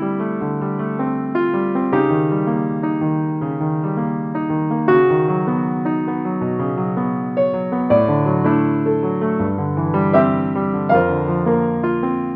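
Background music: a slow, gentle piano piece with sustained chords.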